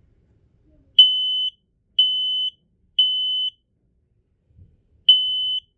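Kidde P3010L smoke alarm sounding during a test: loud, high-pitched half-second beeps on one steady tone in the temporal-three pattern, three beeps a second apart, then a pause, with the next group of three starting near the end. This is the standard smoke alarm evacuation signal.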